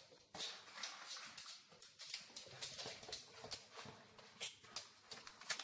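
A spaniel's claws clicking and tapping irregularly on a laminate floor as it moves about, faint.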